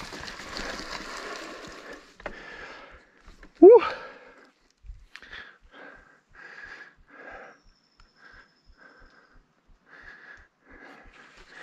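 Mountain bike tyres rolling and rattling over a dirt trail for about two seconds, then a short, loud rising squeal a little after three seconds in. It is followed by the rider's heavy breathing, about two breaths a second.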